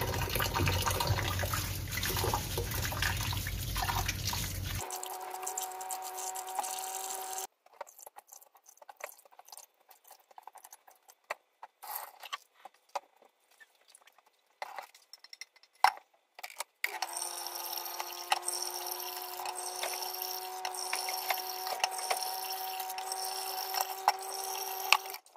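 Tap water running into a steel bowl of rice in a stainless steel sink as the rice is rinsed; the running tap carries a steady hum. In the middle the flow stops and hands swish the rice in the bowl, with scattered small splashes and clinks, then the tap runs again with its hum.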